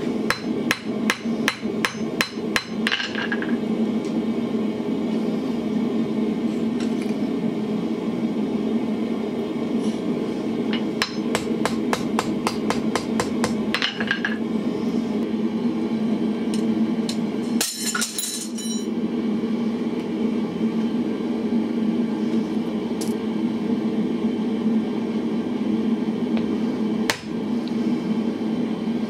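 Hand hammer striking hot steel on an anvil while dressing a forged bottle-opener ring: a quick run of light blows at the start and another about halfway through. A steady low drone runs under the strikes.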